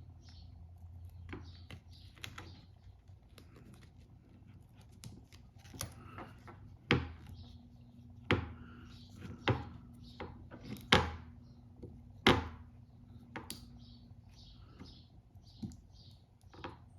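Small hand tools and phone parts being handled during a phone repair: scattered sharp clicks and taps, with about five louder knocks between about 7 and 12 seconds in.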